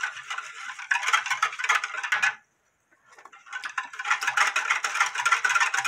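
Wire whisk beating rice water in a glass bowl with rapid strokes, stirring salt and starch paste in to make a water kimchi brine. The strokes break off briefly about two and a half seconds in, then resume.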